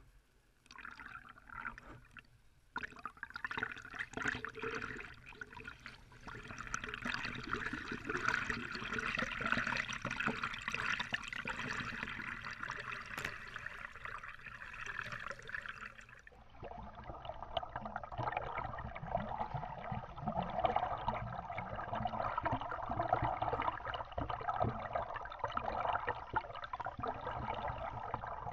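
Swimming-pool water splashing and sloshing close to the microphone as a swimmer swims butterfly past, turning duller after a cut about sixteen seconds in.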